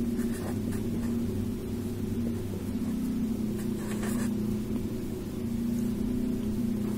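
Steady low background hum, with a few faint writing strokes now and then.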